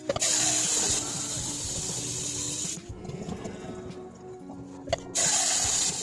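Water from a bathroom sink tap running into a plastic measuring jug in two spells. The first lasts about three seconds from the start; the second starts just after five seconds in, right after a sharp click.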